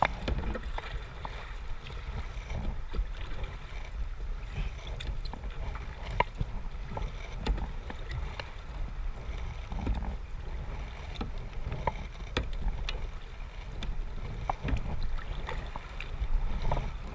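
Water sounds around a kayak on a river: small irregular splashes and drips from paddling over a steady low rumble.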